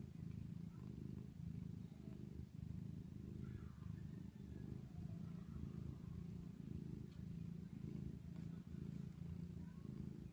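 A tabby mother cat purring as she nurses her kittens: a low, steady rumble that swells and eases in even pulses.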